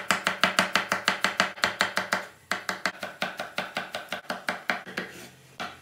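Chef's knife chopping onion and then green peppers on a wooden cutting board: quick, even knife strokes about five a second, with a short pause a little over two seconds in.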